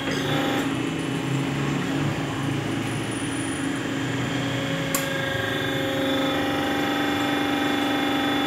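Plastic injection-moulding machine running: a steady hum from its motor and hydraulic pump. A sharp click comes about five seconds in, after which the hum grows slightly louder and steadier.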